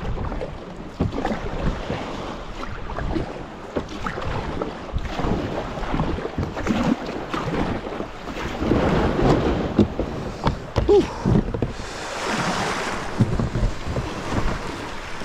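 Kayak paddle strokes splashing and water sloshing around a plastic sit-on-top kayak as it comes in through small waves, with wind on the microphone. About twelve seconds in comes a longer rush of water as the hull runs up onto the gravel beach.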